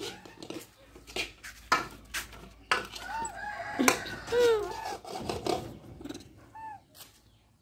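Short rising-and-falling animal calls, a quick run of them about three to five seconds in and single ones near the start and end, over scattered sharp clicks and knocks.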